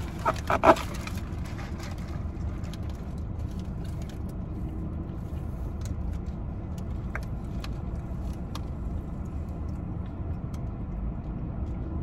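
Loud crunching as a bite is taken from a Taco Bell Crunchwrap Supreme, its crunchy shell cracking twice in the first second. After that comes a low, steady car rumble with a few faint clicks.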